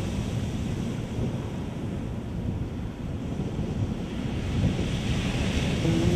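Ocean surf washing onto a sandy beach, with wind buffeting the microphone. The hiss of the surf swells about five seconds in.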